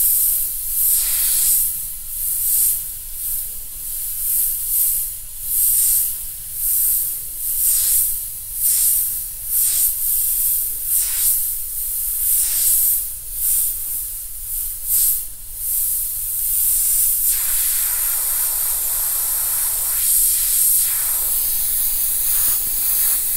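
Airbrush spraying black paint onto a T-shirt with compressed air, a hiss that comes in short bursts about once a second as the outline of a crown is drawn, then runs as a longer steady spray near the end.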